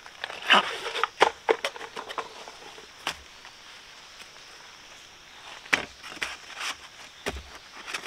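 Irregular sharp knocks and clatter, a quick cluster early on and another group near the end.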